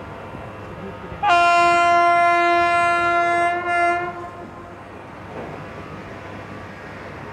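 A train horn sounds one long steady blast of about three seconds, starting about a second in, over the steady running noise of a train on the track.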